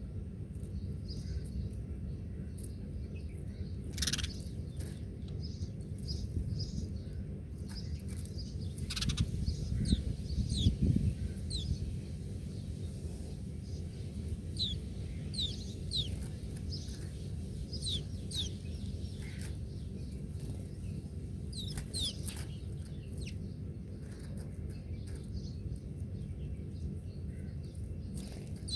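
Small birds chirping: many short, high notes, often quick downward slides, scattered irregularly. Under them runs a steady low rumble that swells for a couple of seconds near the middle.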